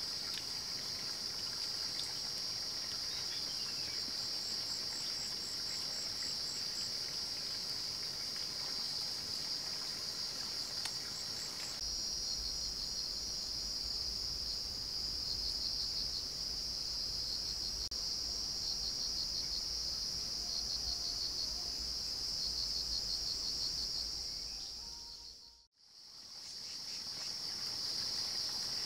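Steady high-pitched chorus of forest insects, crickets or cicadas, with pulsing trills over a continuous buzz. It fades out briefly near the end and comes back.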